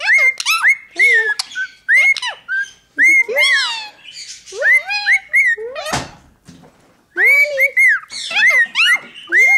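Blue Indian ringneck parakeet chattering: quick runs of short, squeaky notes that rise and fall, with brief pauses between runs. A single knock about six seconds in.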